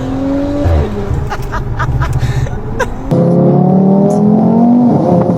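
Car engine accelerating, its pitch climbing and then dropping back at each gear change. About three seconds in, the sound cuts abruptly to another, louder stretch of engine revving up in pitch.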